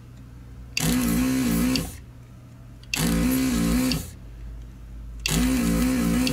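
Electric vacuum desoldering gun's pump running in three bursts of about a second each, a wavering buzz that starts and stops abruptly, sucking the solder off the pins of a mouse click switch to free it from the board.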